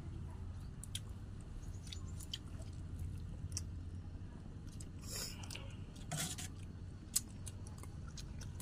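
People eating at a shared meal: chewing, with scattered light clicks of spoons against a metal tray over a steady low hum. Two short hissy bursts come about five and six seconds in.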